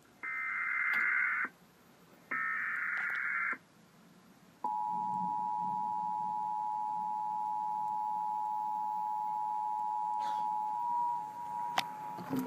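Emergency Alert System broadcast from a TV: two bursts of the SAME digital header's data screech, each a little over a second long with a short gap between, then the EAS attention signal, a steady two-tone 853/960 Hz buzz, which starts about four and a half seconds in and runs on. The sequence signals a severe thunderstorm warning.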